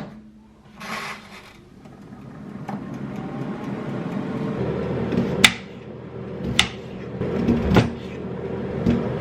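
A kitchen appliance's fan running with a steady hum that builds up and grows stronger about halfway through. Three sharp clicks or knocks from kitchen handling sound over it, about a second apart.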